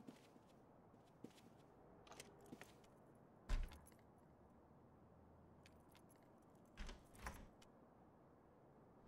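Keys rattling and clicking in a front-door lock, with a sharp knock about three and a half seconds in and two more near seven seconds as the door is tried: the key is stuck in the lock.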